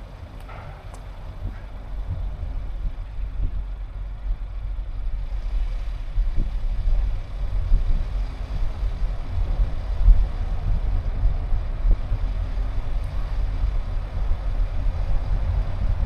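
Car driving: a steady low engine and road rumble that grows louder over the first few seconds.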